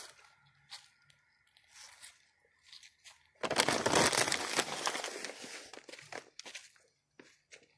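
Footsteps crunching and rustling through dry fallen leaves, a loud stretch starting about halfway in and lasting a couple of seconds, with scattered light crackles before and after.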